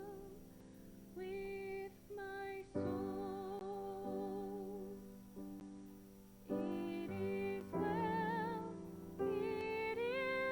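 Slow music: a woman singing held, vibrato notes over sustained keyboard chords.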